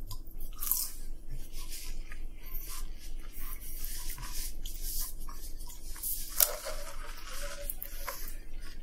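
Fast-food eating sounds: chewing and the handling of paper food wrappers, a run of irregular small crinkles and clicks with a louder one about six and a half seconds in, over a faint steady hum.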